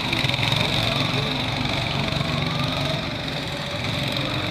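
Small go-kart engines running as several karts lap the circuit, their pitch rising and falling as they accelerate and slow.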